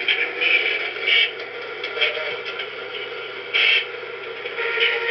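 Police radio sound effect from a scale-model police car's sound module, played through a tiny speaker: a steady crackly hiss broken by short bursts of static about once a second.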